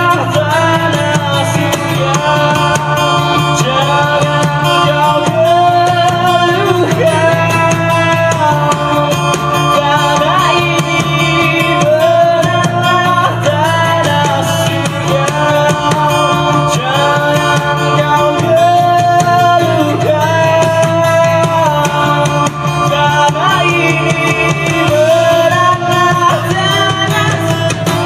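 A band playing a rock song: guitar and a singer's melody over a steady bass line.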